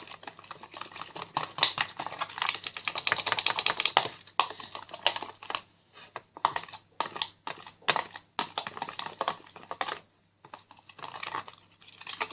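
Spoon stirring glue and water in a bowl: quick, rapid clicking and scraping against the bowl in spells, with short pauses between them.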